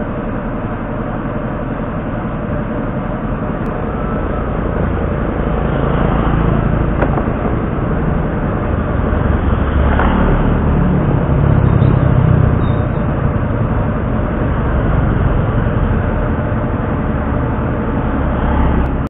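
Road traffic passing, mostly motorcycle and scooter engines over a steady traffic hum, swelling louder around the middle as bikes ride by close.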